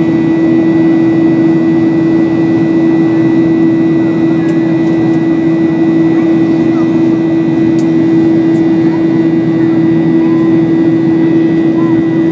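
Airliner jet engines heard from inside the cabin in flight: a loud, steady rush of noise with a constant low hum and a fainter high whine.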